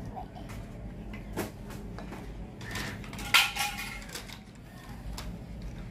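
Plastic toy building blocks clicking and clattering as they are handled and set down, with a few sharp knocks, the loudest a little past halfway.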